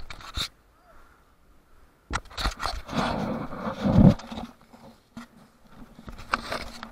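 Rustling and knocking of an action camera being handled and jostled, ending in a loud low thump about four seconds in.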